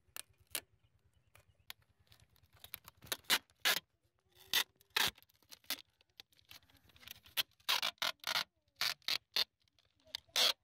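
Clear packing tape being pulled off its roll and pressed around cut aluminium cans in a string of short, sharp strokes, with the plastic wrapping rustling.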